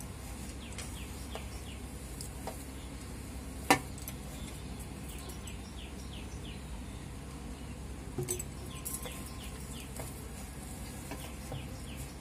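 Hands kneading stiff flour dough in a steel bowl, quiet over a low steady hum, with one sharp knock about four seconds in. A bird chirps in the background in short runs of quick falling notes, several times.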